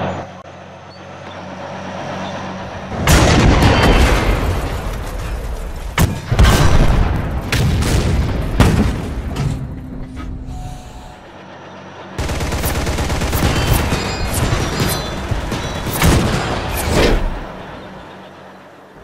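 Tank battle sound effects: a low engine drone, then from about three seconds in a barrage of cannon shots, explosions and rapid gunfire, with music underneath. The barrage eases briefly around ten seconds, comes back at about twelve seconds and fades near the end.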